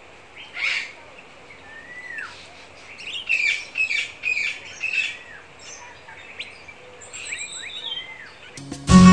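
Birds chirping and calling: short chirps and a few rising-and-falling whistles over a faint hiss. Loud guitar music cuts in abruptly near the end.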